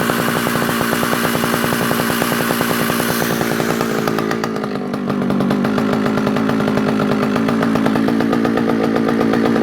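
Vintage Partner R16 two-stroke chainsaw running, fast and bright for about four seconds, then easing off to a lower, steadier speed for the rest.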